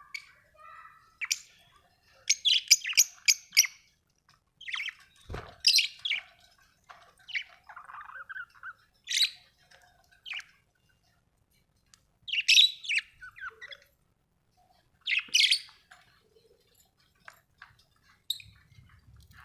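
Budgerigar chirping in short, scattered bursts of high chirps and chatter, with a quick run of about six sharp chirps a few seconds in and brief pauses between calls.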